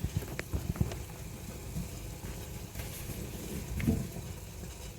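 A pot of oatmeal boiling on the stove, with a low bubbling and irregular small pops from the thick porridge.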